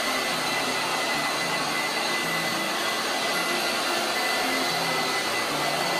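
Handheld electric blower running steadily as it dries a wet dog's coat: a constant rush of air with a thin high whine.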